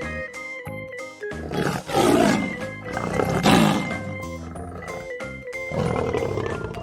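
Lion roaring over background music: two loud roars about a second and a half apart, and a softer one near the end.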